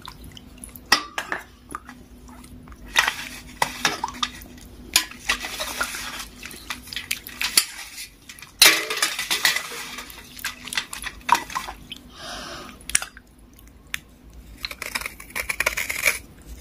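A kitchen knife scraping soaked dark grey blocks over a steel bowl of water, in irregular strokes with sharp clicks of the blade and splashes of water. The loudest stretch of scraping comes a little past the middle.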